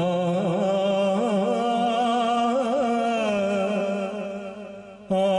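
A man singing a Malayalam poem solo, a slow melody with winding ornaments on each note. He holds one long note that fades away about five seconds in, then starts the next phrase loudly just before the end.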